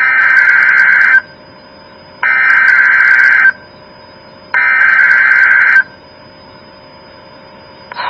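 NOAA Weather Radio SAME digital header: three identical bursts of warbling data tones, each a little over a second long, with pauses of about a second between them. This is the coded message that wakes alert receivers, opening a Required Weekly Test of the Emergency Alert System.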